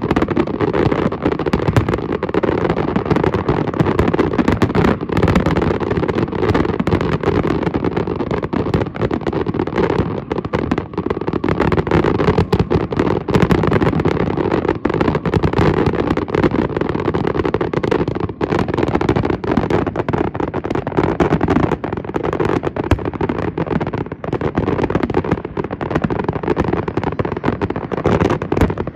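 Fireworks finale: aerial shells launching and bursting in rapid succession, the bangs overlapping into a dense, unbroken barrage.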